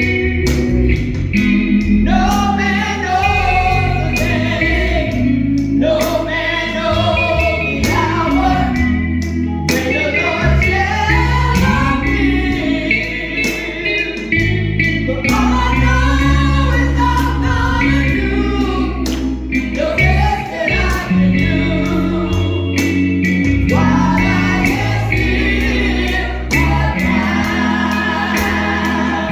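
Gospel song sung by voices with instrumental accompaniment and a steady bass line.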